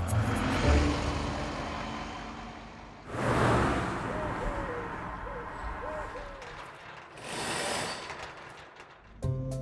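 A bus driving past, its engine and tyre noise fading away over the first few seconds; two more rushes of noise follow, about three and seven seconds in, with a few faint short chirps between them. Guitar music starts near the end.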